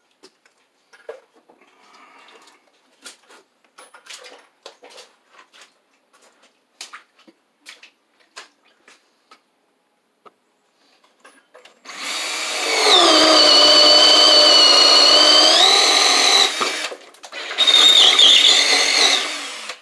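Cordless drill working into a wooden floor joist overhead, in two runs: about four and a half seconds, a short break, then about two seconds more, its motor pitch dipping under load. Before it, scattered clicks and knocks of handling.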